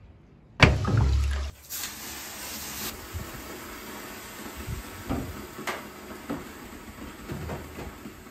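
A heavy knock about half a second in, then water thrown onto the hot stones of a sauna stove hissing into steam, settling into a quieter sizzle with scattered ticks.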